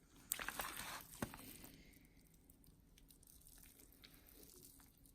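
Moist pulled pork being handled, with soft squishing and a sharp click in the first second and a half, then near quiet.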